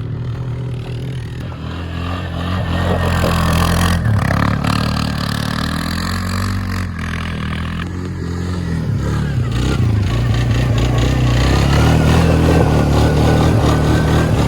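Snowmobile engine running at low speed, dipping in pitch about seven seconds in, then running higher and louder for the rest.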